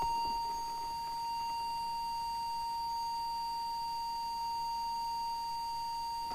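Steady, unbroken test tone just under 1 kHz from a Korg TM-50 tuner's tone generator, used as the audio that modulates a CB radio's transmitter while its FM deviation is being set.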